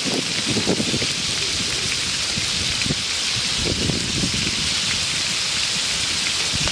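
Whole frogs deep-frying in a wok of hot oil: a steady sizzle with scattered popping bubbles.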